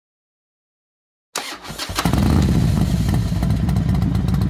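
Silence, then about a second in a motorcycle engine cuts in abruptly and runs steadily.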